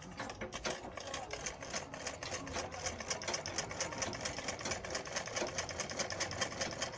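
Domestic sewing machine running steadily, its needle mechanism clattering in a fast, even rhythm as it stitches down the folded hem of a mekhela.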